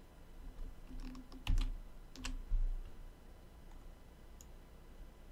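A few sharp clicks from a computer mouse and keyboard on a desk, bunched together after about a second and again a little past two seconds, with two dull low thumps that are the loudest sounds.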